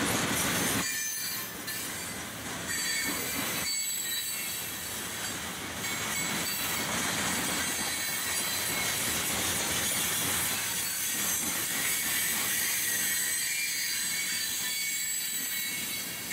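Freight cars of a mixed manifest train rolling steadily past on steel wheels, with a continuous high-pitched wheel squeal over the noise of wheels on rail.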